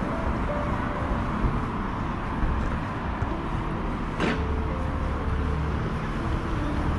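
Busy street traffic: vehicles passing with a steady hum of road noise, and a single sharp knock about four seconds in.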